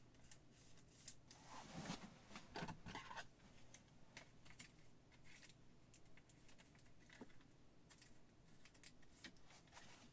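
Faint rustling and clicking of trading cards being handled, with a few slightly louder scrapes about two to three seconds in, against near silence.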